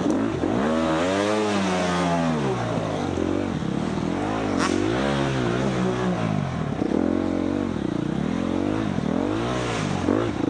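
Four-stroke dirt bike engine revving up and dropping back again and again as the throttle is worked, with one sharp knock about four and a half seconds in.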